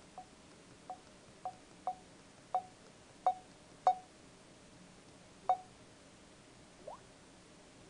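Android phone's ringer-volume feedback beep, sounding once for each step as the ringer volume is raised: seven short beeps about half a second apart, each louder than the last, then one more a second and a half later as the volume is lowered a little. A faint short rising chirp near the end.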